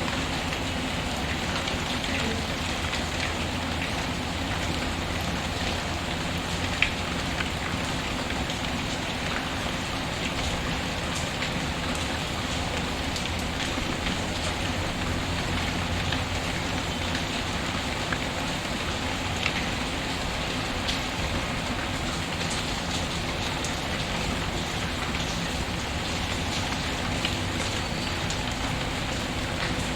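Steady rain falling on a surface, mixed with a crackling wood fire. Occasional sharp pops stand out, the loudest about seven seconds in.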